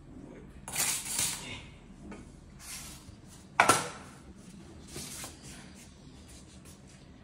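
Stainless steel dog food bowls handled and set down on a wooden floor, one landing with a sharp metallic clank and a short ring about three and a half seconds in. Softer rustling and scraping noises come before and after it.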